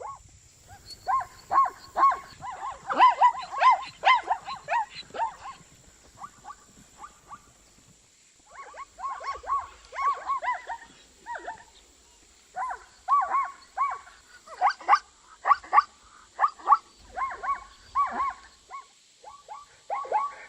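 Zebra calling: bouts of rapid, repeated yelping barks, with a pause of a couple of seconds partway through.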